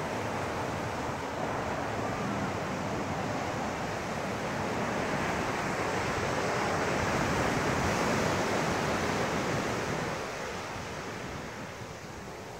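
Ocean surf breaking and washing up a sandy beach: a steady wash of noise that swells about two-thirds of the way through and eases near the end.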